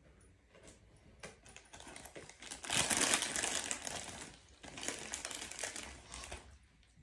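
Bulldog gnawing at a chew on a faux-leather dog bed: crackling, crunching noises with small clicks, loudest for a couple of seconds about three seconds in, then on and off.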